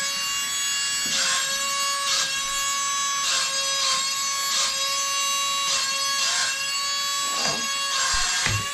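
Wall-climbing RC car's suction fan running with a steady high whine, and short rougher whirrs from its drive wheels coming and going about once a second as it moves over a wooden floor.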